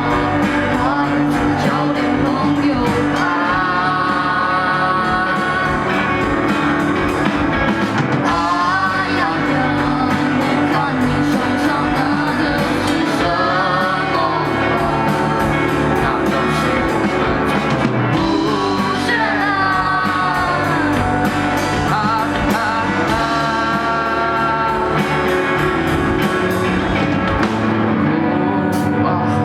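A rock-style song with singing over guitar, bass and drums, with a steady beat.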